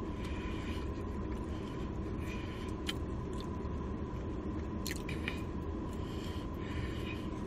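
A person chewing and eating, with a few faint mouth clicks, over a steady low background hum.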